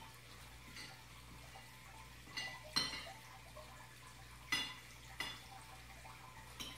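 Water dripping and splashing into an aquarium in about five short plinks, over the steady low hum of the tank's filter pump.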